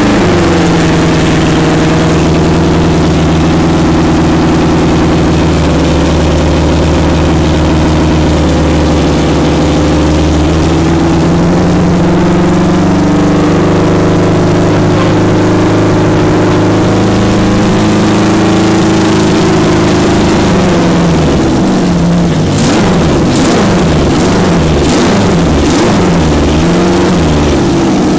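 Honda CB350F racer's inline four-cylinder engine running at a steady speed for about twenty seconds. From about 22 seconds in, the throttle is blipped again and again, the revs rising and falling several times, with a few sharp cracks among the blips.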